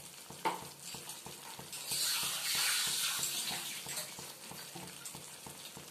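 A yogurt and cashew paste gravy sizzling and bubbling in hot oil in a frying pan, with a louder hiss between about two and four seconds in.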